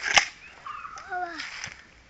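A gun fired once: a single sharp crack just after the start, with a short ring-out.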